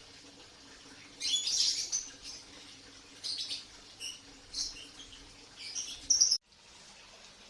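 Lovebirds chirping: bursts of high, sharp calls coming every second or so, the longest and loudest one about a second in and another near the end.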